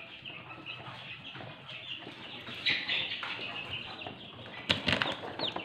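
Chicks peeping, a run of short high cheeps with some falling whistled notes, and a few sharp knocks from handling the cardboard box about three-quarters of the way through.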